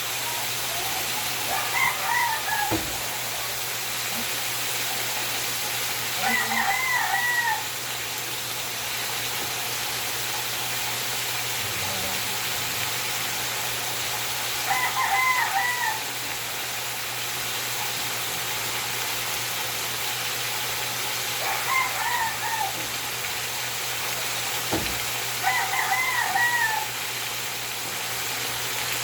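Rooster crowing five times, each crow a second or so long, several seconds apart, over a steady background hiss.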